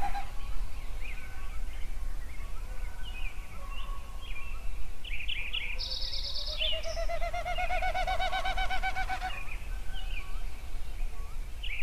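Birds chirping and calling over a low steady rumble, with one long trilled call that rises in pitch about six seconds in and lasts about three seconds.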